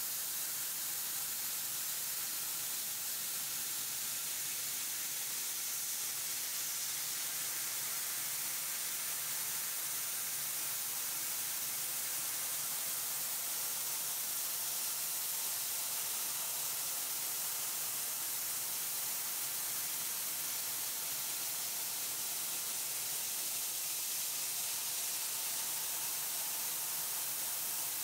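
12 kW fiber laser cutting head cutting 20 mm brass plate: a steady, high-pitched hiss of the assist-gas jet blowing through the cut.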